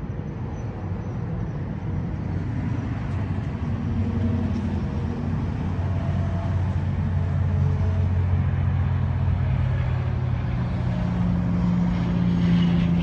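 Motor vehicle engine running with a steady low hum that grows louder, its pitch stepping up near the end.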